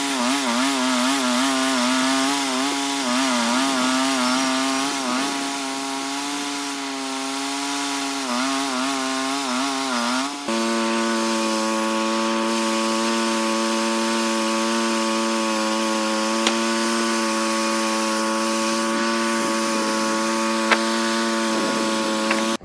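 Sawmill engine running while the blade saws through a large locust log, its pitch wavering as the load changes. About ten seconds in, the pitch drops abruptly to a steady hum and holds there, with a couple of faint clicks.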